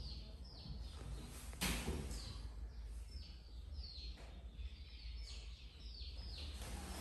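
Short high chirps falling in pitch, repeating about every half second, over quiet room tone. One thump about a second and a half in as a young macaque lands on the tiled floor.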